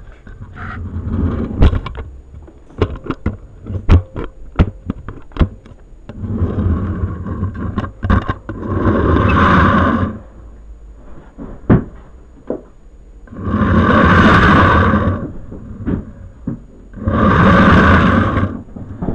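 Model-train handling noise picked up by the camera strapped to a OO gauge coach as it is pushed along the track by finger: a run of sharp clicks and knocks in the first six seconds, then four rushing swells of scraping and rubbing noise, each a second or two long.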